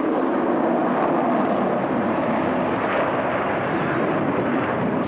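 Loud, steady rushing jet noise from a Sukhoi Su-27 fighter's twin turbofan engines as it manoeuvres in a flying display.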